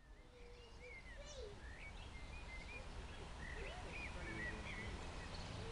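Small birds chirping and singing in many short, quick calls over a low steady background rumble, fading in at the start.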